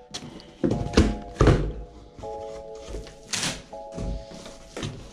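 Background music with held chords, over several sharp thunks and knocks from the cardboard bike box being handled and cut open.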